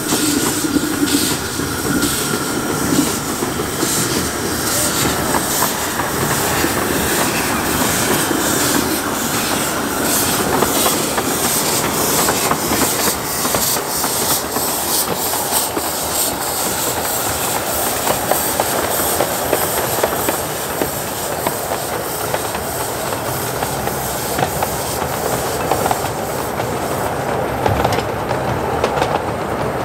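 10¼-inch gauge steam locomotive Waverley hauling a train of passenger coaches past and away, its exhaust beating regularly in the first half. The train's wheels clatter on the track.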